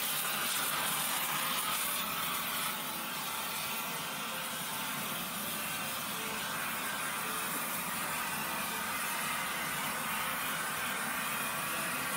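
Gas heating torch burning steadily with a hissing flame, played against a cast iron brake drum to preheat it for welding with nickel-iron rod.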